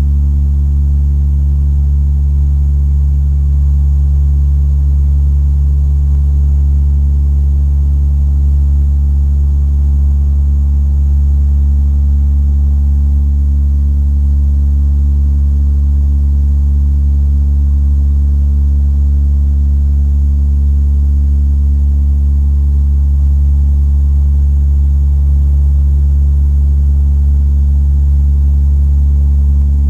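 Steady, loud drone of a De Havilland Dash 8-300's Pratt & Whitney PW123 turboprops and four-blade propellers heard inside the cabin near the propeller plane, a deep hum made of several low steady tones.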